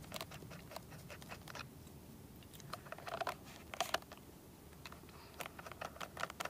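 Faint scratching and irregular light clicks of hands fitting a propeller onto an electric RC plane's motor, with a couple of louder scrapes partway through.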